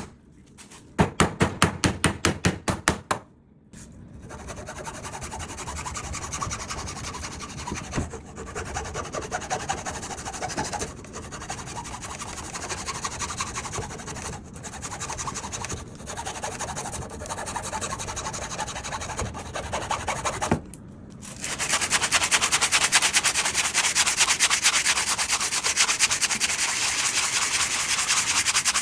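Wood being sanded by hand: a steady rasping rub with short pauses between runs of strokes, becoming louder and denser in the last third. It opens with about two seconds of quick, even knocks, around five a second.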